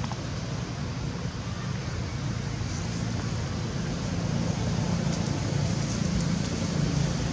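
Steady outdoor background noise: a low, even rumble with a hiss over it, and a few faint ticks near the end.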